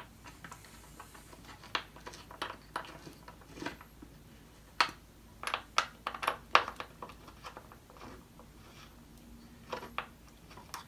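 Allen wrench turning screws into an office chair's metal seat mechanism: scattered light metallic clicks and taps, busiest around the middle.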